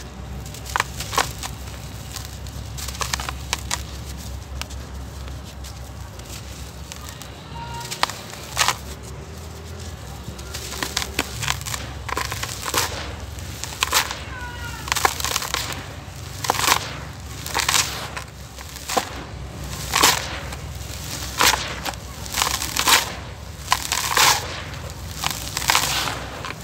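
Hands crushing and crumbling clumps of dry, gritty dirt, the grains pouring and rasping through the fingers. The crunches are sparse at first, then come about once a second through the second half.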